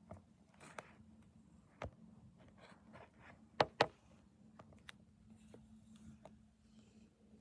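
Scattered small clicks and taps of objects being handled close to the microphone, with a sharp pair about three and a half seconds in, over a faint steady hum.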